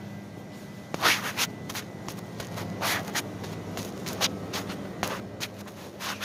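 Jacket fabric rubbing and brushing against a phone's microphone in irregular rustling strokes, over a steady low hum.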